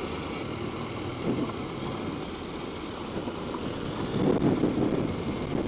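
Husqvarna Norden 901's parallel-twin engine running steadily while riding a gravel track, growing a little louder in the last second or so.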